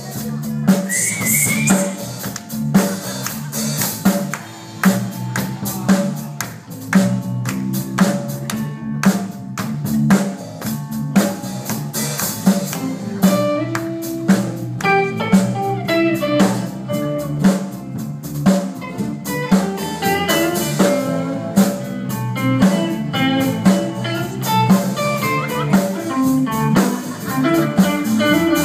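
Live blues-rock band playing an instrumental break: electric guitar playing lead lines over bass and a steady drum-kit beat.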